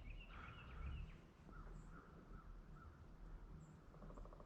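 Near silence with faint bird calls: a quick run of chirps at the start, a few softer notes around the middle, and a faint rapid trill near the end.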